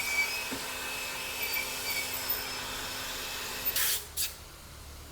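Compressed air blowing with a steady hiss and faint hum to clean out the scooter's rear brake assembly. It stops a little under four seconds in, followed by two short blasts.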